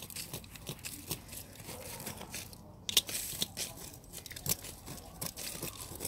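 Hands scraping and digging through gritty soil around sweet potatoes, with irregular crunches and crackles; the loudest crunch comes about three seconds in.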